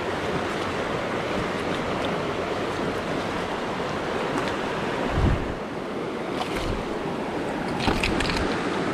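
Shallow rocky creek running over stones in a riffle: a steady wash of water, with a low thump about five seconds in and a few faint clicks near the end.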